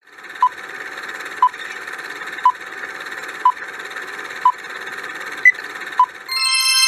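Quiz countdown timer sound effect: a steady hissing bed with a short beep every second, one of the last beeps pitched higher. Near the end the timer runs out and a bright, many-toned chime starts.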